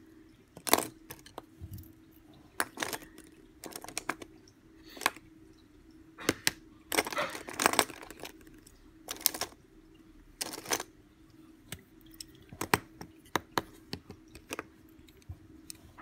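Metal mechanical pencils being handled: a series of short sharp clicks and taps, with a longer scraping sound about seven seconds in. A faint steady hum runs underneath.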